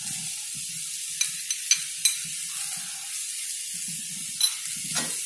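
Sliced mushrooms and onions sizzling steadily in hot oil in a steel kadai. A few sharp clicks stand out: three in quick succession between about one and two seconds in, and another near the end.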